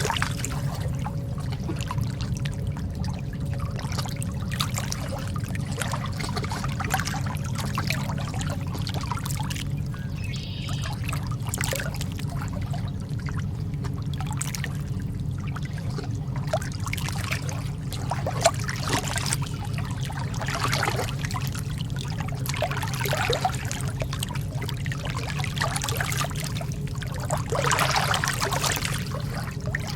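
Calm ocean water lapping and splashing in small, irregular wavelets over a steady low rumble, with a slightly bigger wash near the end.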